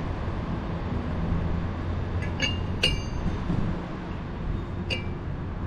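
A metal ring clinking against the metal bearing housing of a Hale pump as it is set in and lined up with its notch. There are a few light metallic clinks with a short ring, the loudest about three seconds in, over a steady low hum.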